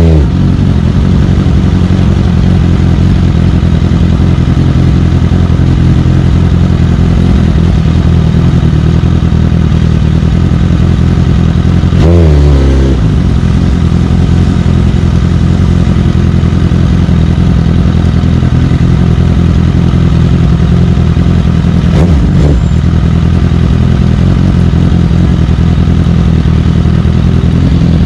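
Suzuki GSX-R1000 K8 inline-four engine running steadily as the bike is ridden, with a short change in engine pitch near the middle and a smaller one later on.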